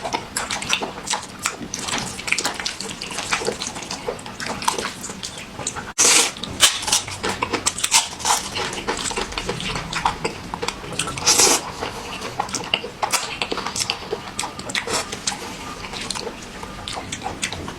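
Close-miked eating sounds: wet slurping, smacking and chewing, a dense run of sharp little clicks with a few louder slurps, with a brief break about six seconds in.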